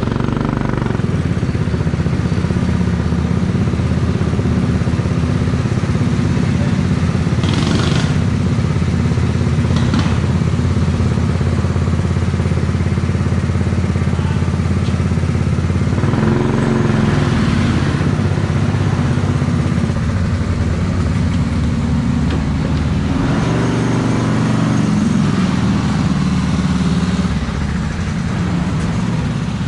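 Go-kart engine running continuously under load, its pitch shifting up and down a few times in the second half as the kart slows and speeds up.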